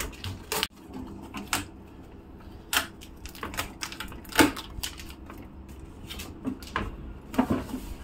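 Polythene bag crinkling, with scattered light clicks and taps against a plastic refrigerator drawer as the bag is handled.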